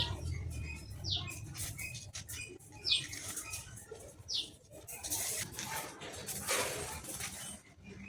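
Birds chirping: a few short, high calls falling in pitch, over scattered rustling and clicks.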